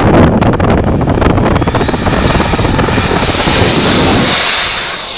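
Model jet's 105 mm electric ducted fan at full power on the takeoff roll: a loud rushing roar with a high fan whine that rises as the jet approaches and drops slightly as it passes, about four seconds in.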